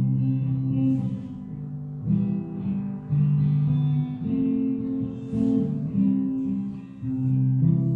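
Instrumental music on acoustic guitar, slow chords changing about once a second.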